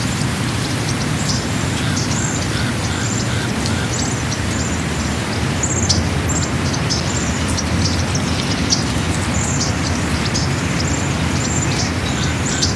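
Birds chirping, many short high calls repeating throughout, over a steady low rumble.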